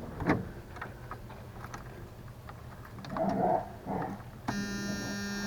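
1994 Jeep YJ engine being started on freshly installed Big 7 battery cables: a few clicks, a brief rough burst of cranking about three seconds in, then about a second later a steady running hum sets in abruptly and holds.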